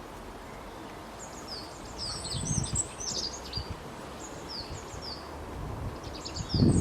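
Small birds calling in the wild: short, high, down-slurred chirps in scattered bursts, busiest in the middle and again near the end, over low rumbles that come up briefly in the middle and again at the end.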